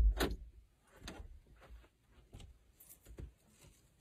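A few faint, short knocks and rustles, the strongest just after the start and the rest spaced out, ending with a closet door being opened.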